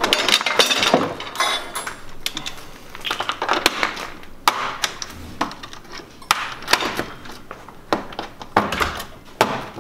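Irregular metal clicks, clanks and rattles as tool hangers and holders are unhooked and pulled off the steel side panel of a tool cart, busiest in the first second or so.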